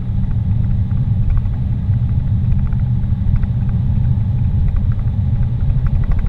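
Steady low rumble of a car driving at road speed, heard from inside the cabin: engine, tyre and road noise.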